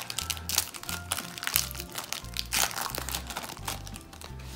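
Foil wrapper of a hockey card pack crinkling and tearing as it is opened by hand, in sharp crackles that thin out near the end. Background music with a steady bass line plays under it.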